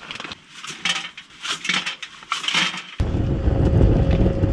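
Wood pellets rattling and clinking against the metal of a small wood-burning tent stove as they are fed in. About three seconds in, a sudden loud, low rumble of the pellet fire burning hard in the firebox takes over, with a faint steady whine.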